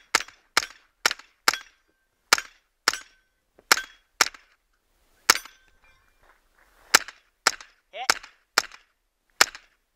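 9mm Walther PPQ pistol fired in quick strings at steel targets: about fifteen shots, with a pause of more than a second near the middle. Hit steel plates ring briefly after some of the shots, most clearly near the end.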